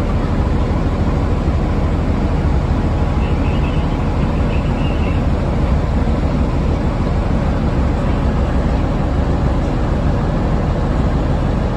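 Container freight train passing close by on the adjacent track, a steady rumble of wagon wheels on the rails heard from inside a passenger coach.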